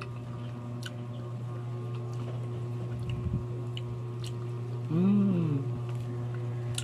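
A person eating ripe mango from a spoon: a few faint mouth clicks and smacks over a steady low hum. About five seconds in comes a short hummed 'mmm' that rises and falls in pitch.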